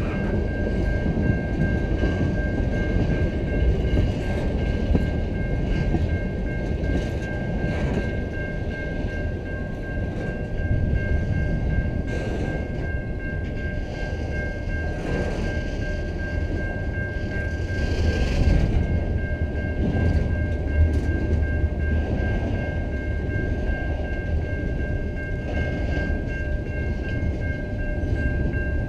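Freight train cars rolling past at close range: a steady rumble of steel wheels on rail, with a few clanks now and then. A steady high-pitched ringing tone carries on throughout.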